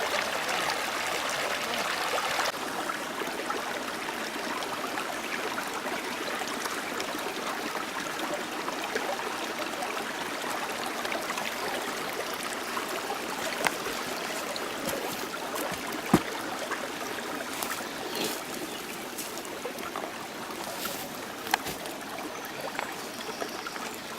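Stream water running steadily, with a few short sharp clicks or knocks over it.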